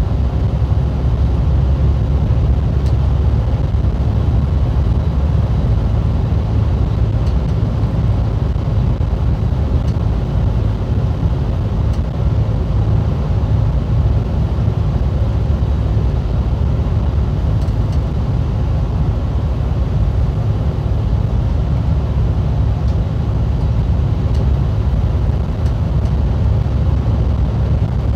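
Steady low rumble inside an MCI D4505 motorcoach cruising at highway speed: the coach's engine drone and tyre and road noise, heard from the passenger cabin, with a few faint ticks now and then.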